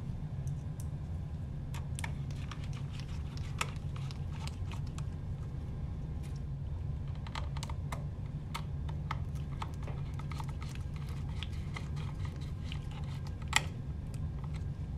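Light, irregular clicks and taps of a small Phillips screwdriver turning screws into a circuit board, with one sharper click near the end, over a steady low hum.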